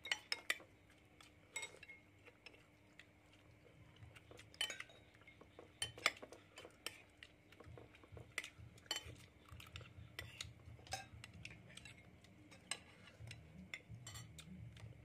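Metal spoons clinking and scraping against ceramic plates and bowls as people eat, in scattered, irregular clinks.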